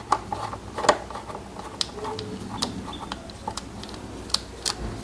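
Screwdriver turning out an already-loosened screw from the underside of a Suzuki Raider R150's plastic fairing, with scattered light clicks and taps of metal on plastic.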